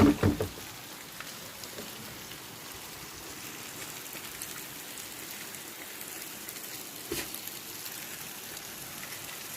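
Heavy rain falling steadily. A short cluster of thumps at the very start and a softer one about seven seconds in.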